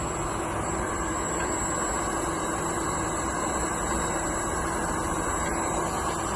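TIG welding machine running: a steady hiss with a constant hum and a thin high whine.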